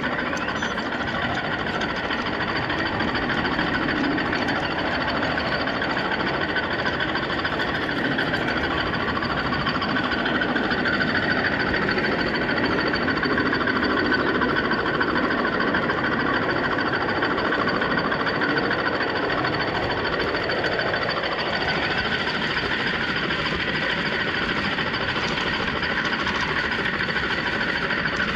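Garden-railway model train running on outdoor track, heard from a microphone riding on one of its wagons: a steady rattle of wheels over the rails with a constant whine from the locomotive's motor and gears.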